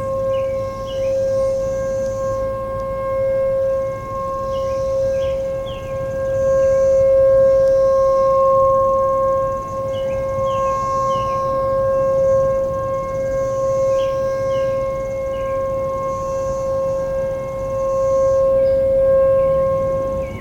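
Sentry 14V-B outdoor warning siren sounding a steady tone, heard from about half a mile away. Its pitch holds level while its loudness swells and fades every few seconds.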